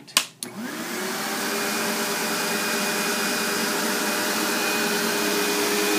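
Sebo Automatic upright vacuum cleaner switched on with a click, its motor rising in pitch as it spins up over about a second, then running at a steady whine.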